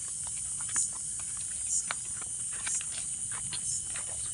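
Crickets and other insects calling: a steady high drone with a brighter chirp pulsing about once a second, and scattered short clicks.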